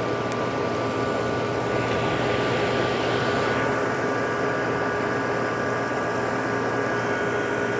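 1981 Emerson Quiet Kool 18,000 BTU window air conditioner running steadily: compressor hum with a few steady tones under the rush of fan air, which swells briefly about two seconds in. A very healthy-sounding unit, its compressor at full head pressure on a full refrigerant charge.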